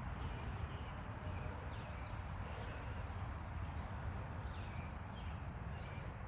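Outdoor background: a steady low rumble, with faint, scattered short chirps from birds in the distance.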